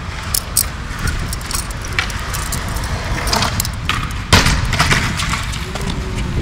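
Metal handcuffs being handled on a wrist, with scattered sharp clicks and a louder clack about four seconds in, over a steady low rumble.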